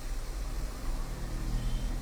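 Hot-air rework station blowing steadily, a rushing hiss over a low hum, as it pre-heats the area around an iPad's A10 CPU to soften the black underfill glue before the chip is lifted.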